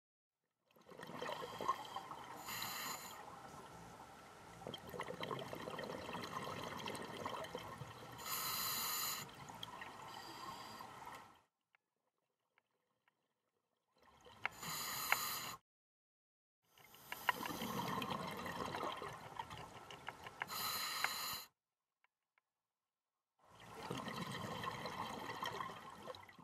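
Open-circuit scuba regulator breathing underwater: long stretches of bubbling exhaust alternate with short hisses of inhaled air, and the breaths are separated by silent pauses.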